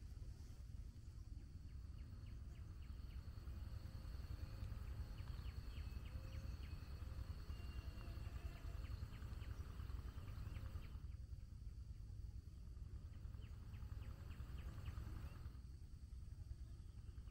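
Faint outdoor ambience: a steady low rumble under a thin high whine, with several runs of short, quick high chirps from some small animal.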